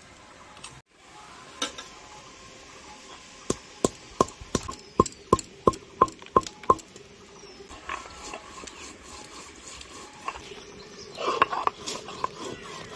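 Stone grinding block (sil-batta) pounding spices on a flat stone slab: about ten sharp stone-on-stone knocks, about three a second. Near the end the block is rocked and rubbed across the slab, with scraping and a few more knocks.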